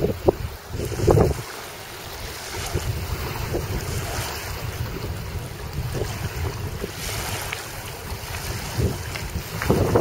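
Wind noise on the microphone over rushing water, with louder buffets about a second in and again near the end.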